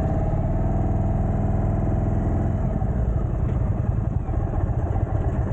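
Indian motorcycle engine running under way. A steady low engine note holds for the first couple of seconds, then turns rougher about two and a half seconds in.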